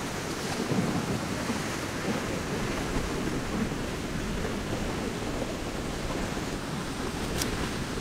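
Steady wash of ocean waves on a beach, with wind buffeting the microphone. A faint tick sounds near the end.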